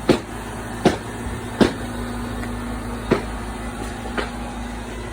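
Steady low hum of a running machine, with five sharp clicks or snaps at uneven spacing over the first four seconds.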